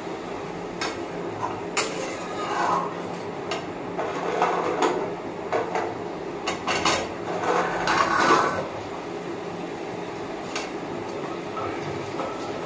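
Metal spatula clinking and scraping against a metal kadai and a steel plate as food is tipped in and stirred: scattered clinks and knocks, with the loudest stretch of scraping about seven to eight seconds in.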